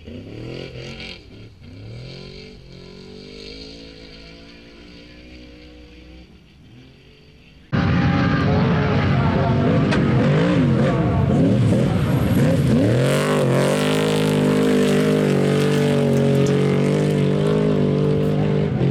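Off-road race truck engine revving hard as it slides through dirt corners. It is fairly distant at first, with the revs rising and falling. About eight seconds in it cuts suddenly to much louder, close up, the revs climbing and dropping through gear changes.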